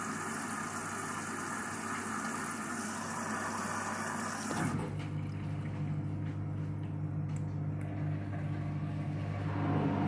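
Front-loading washing machine running its drain with the drum full of suds, a suds lock. Rushing water is heard at first; about halfway through the rush drops away and a steady low motor hum carries on.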